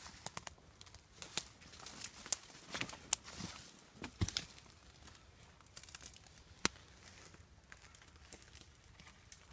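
Irregular rustling and crackling with scattered sharp snaps, from dry leaves, twigs and brush being stepped on and pushed through.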